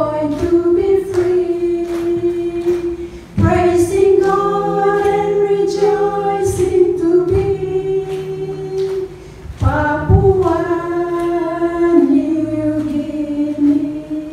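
Slow song sung into a microphone in long held notes, in three phrases with short breaks about three and a half and nine and a half seconds in.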